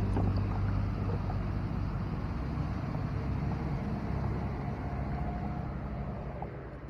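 A small wooden boat's motor running steadily, a low rumble with no clear pitch, fading out near the end.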